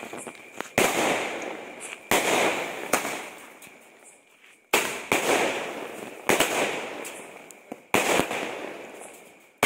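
Aerial fireworks going off in quick succession: a series of loud bangs, one every second or two, each fading out over about a second.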